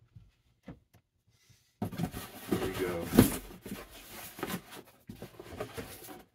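Cardboard shipping box torn open by hand, starting about two seconds in: flaps and packing tape ripping, then packaging rustling and crinkling as the contents are lifted out. The loudest rip comes about three seconds in.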